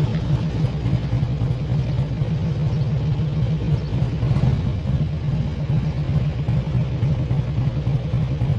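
Harley-Davidson V-twin motorcycle engine running steadily at low road speed, with a fast low pulsing beat.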